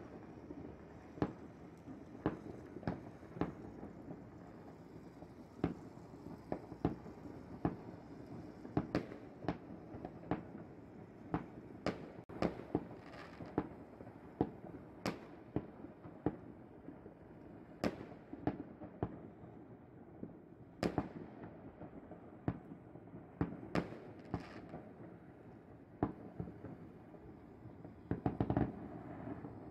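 Fireworks going off across the city: irregular sharp bangs and pops, at times several a second, with a quick run of them close together near the end.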